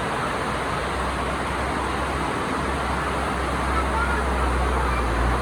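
Heavy monsoon rain pouring steadily, a constant hiss of rain and water running off the road, with a low steady rumble underneath.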